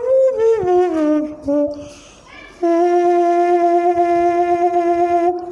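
A person's voice imitating a trumpet: a few notes stepping down in pitch, a short pause, then one long note held steady for nearly three seconds.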